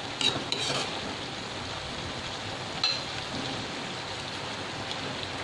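Vegetables in sauce sizzling steadily in a wok, with a few quick spatula scrapes against the pan at the start and a single click about three seconds in.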